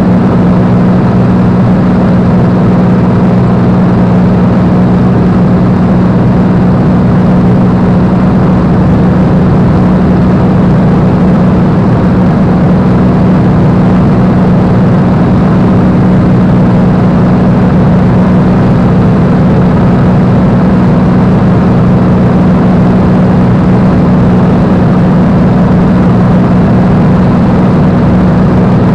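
Supermarine Spitfire's V12 piston engine and propeller running steadily in cruising flight, heard from inside the cockpit as a loud, unchanging drone with a strong low hum and rushing air.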